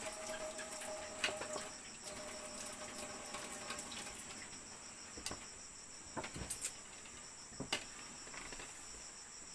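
Insects chirring in a steady high-pitched drone, with a few scattered sharp clicks and taps.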